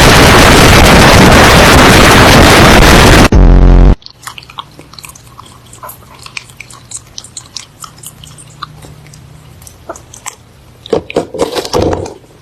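A blast of very loud, heavily distorted noise for about three seconds, cut off by a short loud low buzz. After that come quiet scattered clicks and crunching, with some louder knocks near the end.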